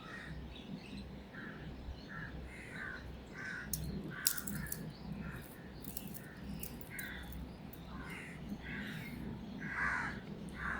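Birds calling over and over, short harsh calls about one or two a second. A few sharp clicks come about four seconds in.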